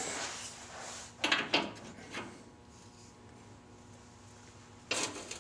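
Metal clanks and scrapes of a wrench on the torsion bar adjusting bolt under a truck: two sharp clanks just over a second in, a lighter one about a second later, then a lull with a faint steady hum before another clank near the end.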